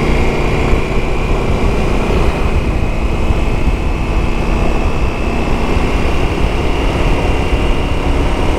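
KTM 1290 Super Adventure S's 1301 cc V-twin running steadily under way as the bike picks up speed to about 80 km/h, with wind rushing over the microphone.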